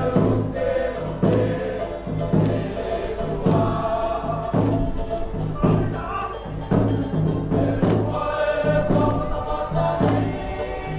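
Cook Islands string band: ukuleles and an acoustic guitar played with a large bass drum beating steadily about once a second, under group singing.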